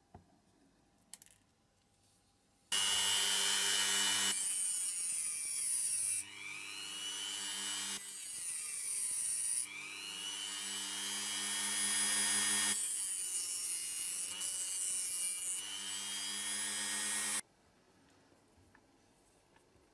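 Small hand-held rotary tool with a thin abrasive disc running at high speed and grinding, a steady whine with gritty noise. It starts about three seconds in and stops shortly before the end. The level jumps several times along the way, and the pitch dips and recovers twice as the disc is loaded.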